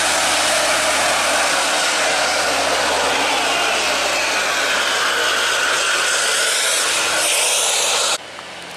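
Tour bus climbing a steep hairpin bend, its engine under load making a loud, steady rushing hiss with a faint whine that shifts in pitch. The sound cuts off suddenly near the end.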